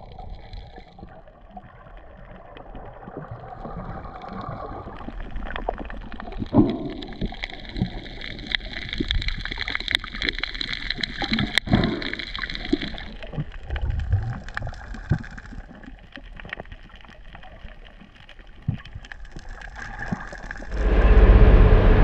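Water gurgling and sloshing, with many scattered clicks and knocks. Near the end a much louder, low, steady rumble of the catamaran's motor comes in.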